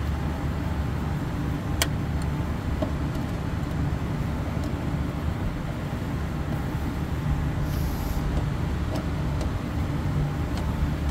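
Steady low hum and rumble of rooftop refrigeration machinery running. A few light metallic clicks come from a screwdriver tightening the terminal screws on a three-pole contactor, the sharpest about two seconds in.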